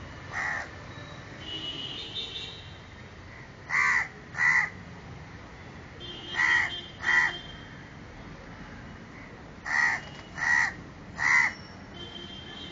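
House crow cawing: eight short, harsh caws in groups, one near the start, then two pairs, then three in a row near the end.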